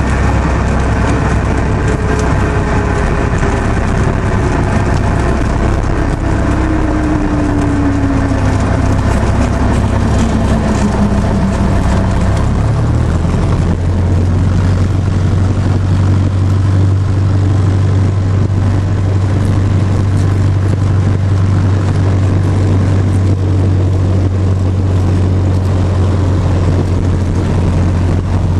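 Light single-engine airplane's piston engine and propeller heard from inside the cockpit during the landing rollout and taxi. A whine falls steadily in pitch as the plane slows on the runway, and about halfway through the engine's low note shifts up to a new steady drone.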